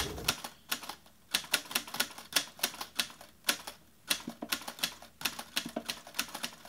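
Irregular light clicks and taps, several a second, of silicone resin molds being picked up and set down on a hard work surface.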